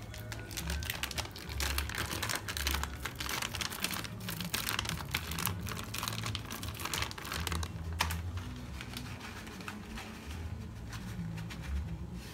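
Plastic packaging crinkling and crackling in quick, irregular bursts as a bag of shredded cheese is torn open and handled.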